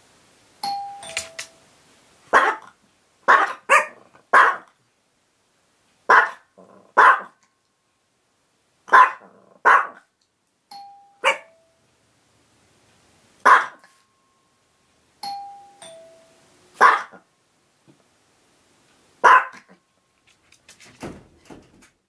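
A two-tone ding-dong door chime sounds three times, and each time Chihuahuas answer with short, sharp barks, mostly in pairs, about a dozen in all. Some scuffling near the end.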